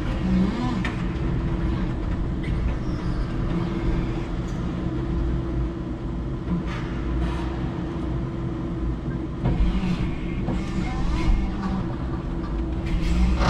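Electric forklift truck driving and maneuvering: a steady motor hum with a low rumble, and a few short knocks and rattles.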